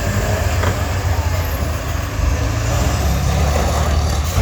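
School bus engines running hard in a steady, heavy low rumble, with a short knock near the end.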